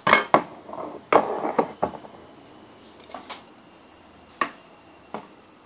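Knocks and clatter of a Sanwa analog multimeter being handled and set down on a wooden tabletop: two sharp knocks at the start, a burst of rattling about a second in, then a few light taps.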